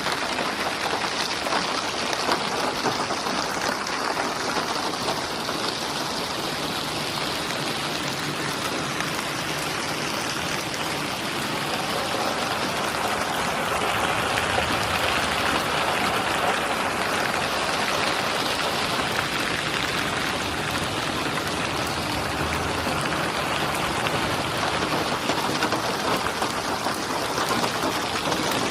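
Steady rain falling, a dense, even hiss of drops on surfaces that grows a little heavier about halfway through.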